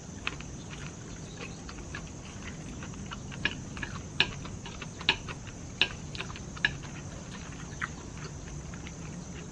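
Eating sounds: chopsticks clicking now and then against ceramic plates of noodles, with chewing, over a steady drone of insects.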